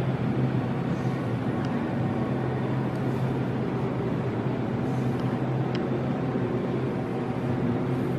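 Steady low hum and background noise, with a few faint clicks.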